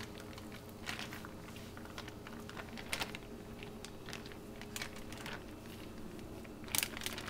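Clear plastic bag crinkling and crackling in the hand as marinade is squeezed out of it, with scattered small clicks; the loudest crackles come about three seconds in and just before the end, over a faint steady hum.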